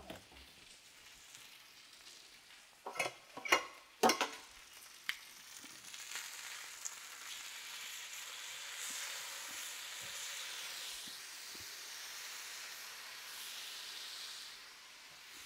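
A few sharp clacks about three to four seconds in, then steaks sizzling steadily on a hot griddle as they are turned with tongs.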